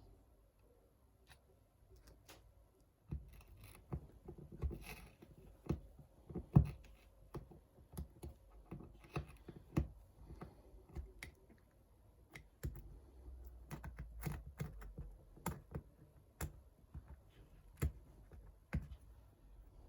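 Irregular small clicks and taps of hand tools prying and picking at the shattered glass of a badly smashed iPad 7th-gen digitizer. They start about three seconds in, with one sharper tap near the middle.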